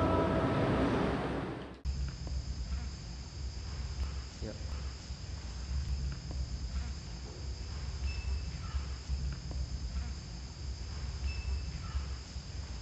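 Chanted intro music fades out and stops about two seconds in. Then comes a steady high-pitched chirring of insects, like crickets, over a low room rumble, with a few faint ticks.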